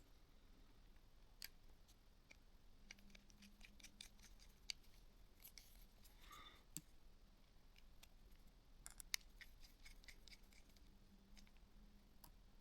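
Near silence broken by a few faint, scattered clicks and taps of small plastic phone parts being handled and pried apart, with one brief faint squeak about halfway through.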